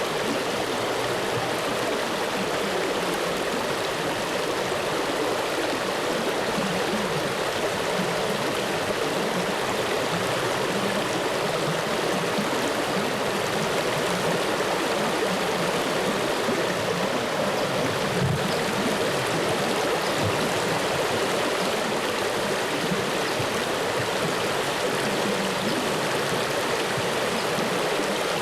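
Flowing stream water rushing steadily, with no breaks or changes.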